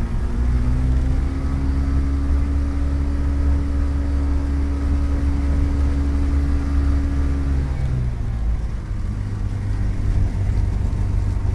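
Rotax 582 two-stroke twin engine of a Kitfox Model 2 running steadily at low power, heard from inside the cabin; about eight seconds in its pitch drops as it is throttled back.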